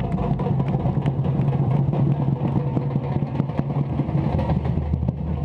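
Afro-Brazilian drum ensemble playing: surdo bass drums give a steady deep tone under many rapid, sharp stick strikes.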